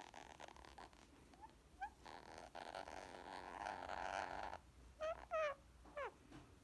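Indian ringneck parakeet purring: a soft rattling purr that swells for about two and a half seconds, then three short chirps falling in pitch.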